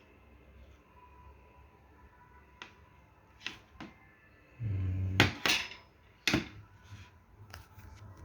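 Small plastic and metal parts of a Samsung J7 Pro phone being handled with tools: scattered sharp clicks and taps, the loudest three between about five and six and a half seconds in, with a brief low buzz just before them.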